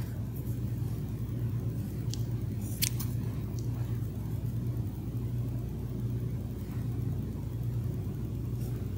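Steady low mechanical hum, like a motor running, with a few light clicks about two to four seconds in.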